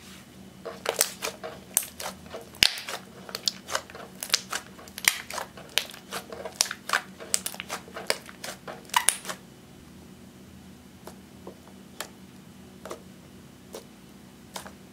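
Eyeshadow-tinted clear slime being squeezed and folded by hand, giving a quick, dense run of clicks and pops for about nine seconds. After that only a few single pops as fingers poke into it.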